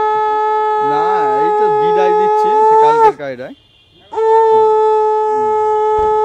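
Conch shell (shankha) blown in two long, steady blasts. The first ends about three seconds in with a short drop in pitch; the second starts about a second later and is still sounding at the end.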